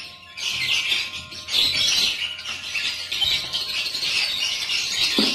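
Many small birds chirping at once in a dense, unbroken high-pitched chatter.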